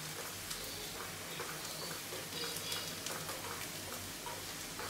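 Chopped onions and spice powder frying quietly in oil in a nonstick kadai, stirred with a wooden spatula that scrapes and taps against the pan. The masala is being cooked until its raw smell is gone.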